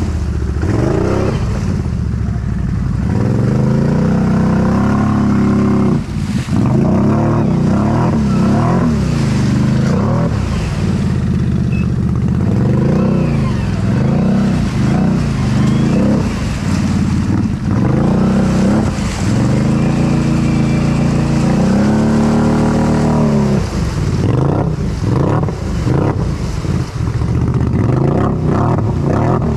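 Tuned 2022 Can-Am Outlander 650 XMR ATV's V-twin engine revving up and down over and over under load as the quad ploughs through deep mud water, with the water splashing.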